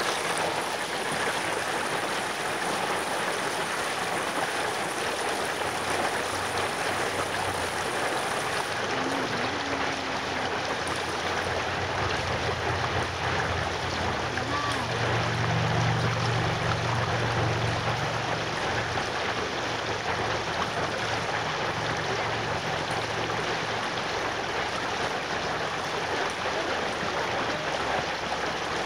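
Shallow rocky creek rushing over stones: a steady hiss of fast-flowing water, with a low rumble swelling for a few seconds around the middle.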